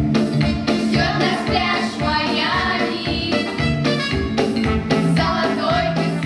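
Recorded music with a steady beat and a bass line.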